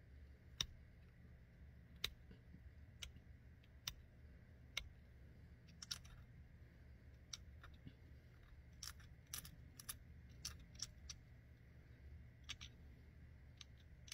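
Pressure flaking flint with a hand-held flaker: sharp, irregularly spaced clicks as small flakes snap off the stone's edge, sometimes two or three in quick succession.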